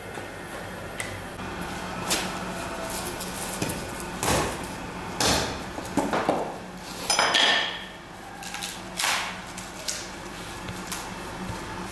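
Irregular knocks, clatters and scrapes of objects being handled, the loudest bunched a little past the middle, over a faint steady hum.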